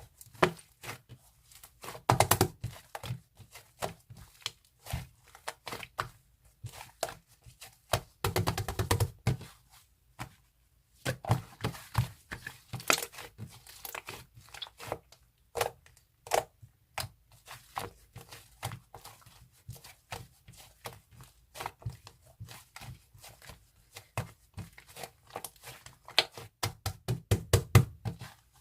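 Slime being pressed, poked and stretched by hand, giving irregular sticky clicks and pops, in thicker flurries a couple of seconds in, around eight seconds in and near the end.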